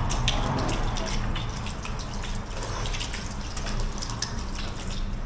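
Restaurant kitchen noise: a steady wash of sound with many small clicks and clatters, like a tap running or food frying.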